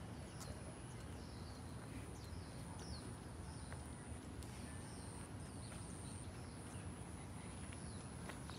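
Cicadas buzzing in a steady high drone with short breaks, while birds chirp over it again and again, each chirp a short falling note. A few light footsteps click on the path.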